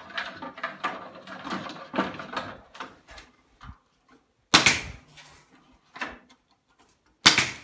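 Welded wire mesh rattling and scraping as it is laid over a wooden gate frame. Then sharp shots from a pneumatic staple gun fastening the mesh to the wood: two loud shots a few seconds apart, with a lighter one between.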